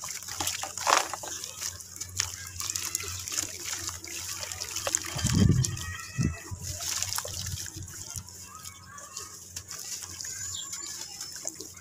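A lump of wet red dirt being squeezed and crumbled by hands into a basin of water, with gritty crackles, trickling and splashing as the chunks drop in. There is a heavier low thump about five and a half seconds in.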